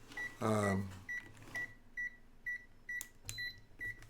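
ZOYI ZT-R02 thermal imaging multimeter beeping repeatedly, short high beeps at one pitch about twice a second. A man gives a brief hum with a falling pitch about half a second in.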